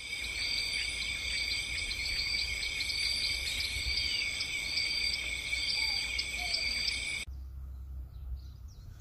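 A steady, shrill chorus of insects that cuts off abruptly about seven seconds in. After it come quieter outdoor ambience with a low rumble and a few short bird chirps.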